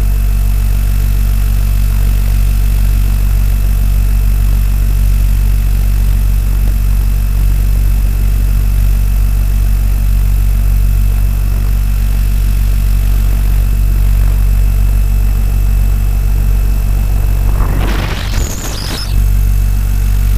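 Large radio-controlled AS350 scale helicopter (800 size) heard from its onboard camera: a steady, deep drone of the drive and rotor with air rushing past. About two seconds before the end a brief rush of noise cuts across it.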